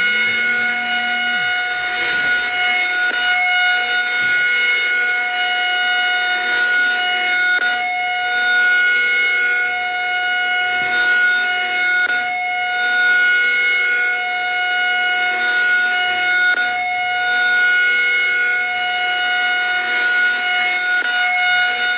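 Outdoor tornado warning siren sounding a steady held tone, its loudness swelling and easing every four or five seconds.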